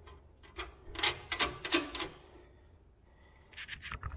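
Small metal clicks and scrapes of a split lock washer and nut being handled and fitted onto a bolt through a steel hanger strap: a quick run of clicks about a second in, then a short clatter near the end.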